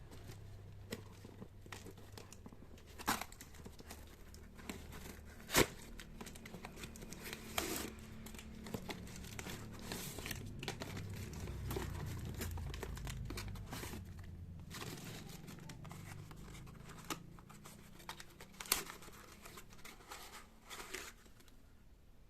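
Parcel packaging being unwrapped by hand: crinkling and tearing, with many scattered sharp crackles.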